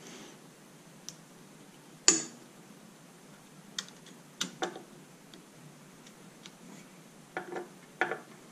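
Sharp scattered clicks and taps of a screwdriver and small metal parts on an outboard motor's magneto plate as screws are worked in. The loudest click comes about two seconds in, a quick pair near the middle and a few more near the end.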